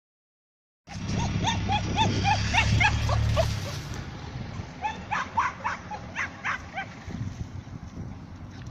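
A small dog yipping in quick high-pitched barks, about four a second, in two runs, after a brief silent gap at the start.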